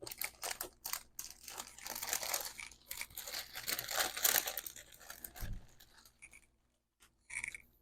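Plastic packaging crinkling and tearing as a packet of craft embellishments is handled and opened: dense crackling for about five seconds, ending with a soft low thump, then a few faint small sounds.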